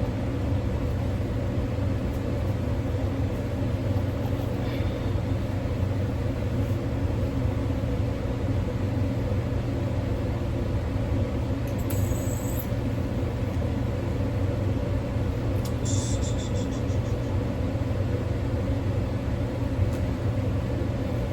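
Steady low mechanical hum throughout, with two brief high hisses about twelve and sixteen seconds in.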